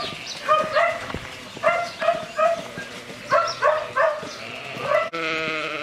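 Short animal calls repeated about two or three times a second, then one longer, steady call near the end.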